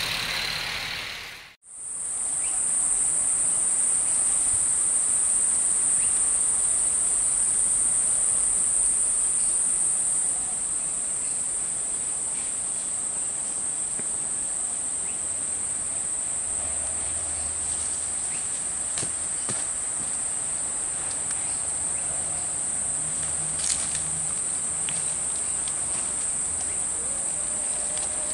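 Steady high-pitched drone of insects in bush, holding level throughout, with a few faint clicks and one sharper tick near the end.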